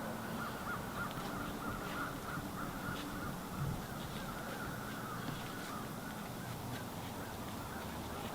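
Birds calling at a distance, a continuous run of short repeated notes, with a few faint clicks.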